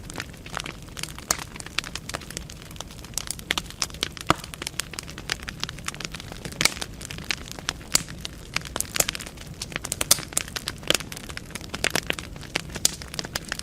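Wood fire burning in a fireplace: logs crackling and popping in irregular sharp snaps over a low steady rumble of flame.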